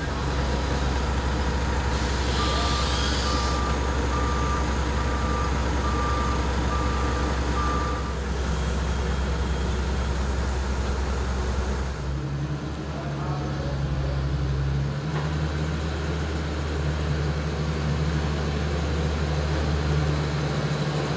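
Forklift engine running steadily under load with its reversing alarm beeping at a regular pace; the beeping stops about eight seconds in and the engine's pitch rises slightly about twelve seconds in.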